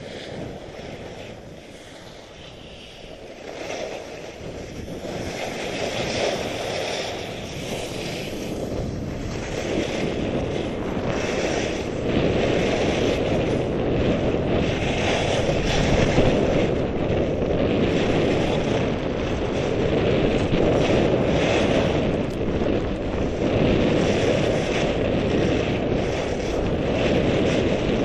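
Wind rushing over the camera microphone together with skis hissing and scraping on packed snow during a downhill run, growing louder over the first ten seconds or so as the skier picks up speed, then holding steady.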